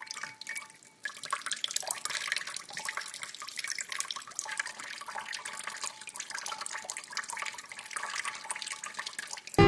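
Water running and splashing, like a tap running into a sink, starting about a second in.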